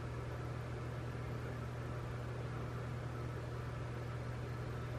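Steady low background hum with an even hiss, unchanging, with no distinct handling sounds.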